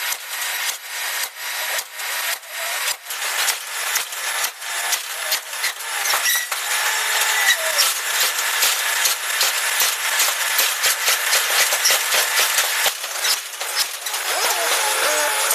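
Metalworking in a forging shop: rapid, repeated sharp metal strikes, about three or four a second, turning into denser scraping and clattering about six seconds in.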